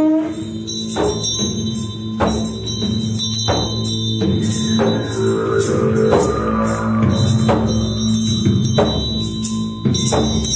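Sound-concert music: a struck percussion instrument hit about once every second and a quarter, each stroke ringing on, over a sustained low drone.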